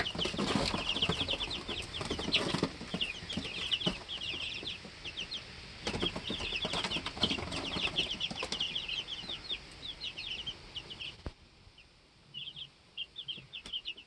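A brood of two-week-old chicks peeping constantly, many short falling peeps overlapping in quick runs, with bursts of wing flapping and scuffling. The peeping breaks off about eleven seconds in, and a few scattered peeps follow near the end.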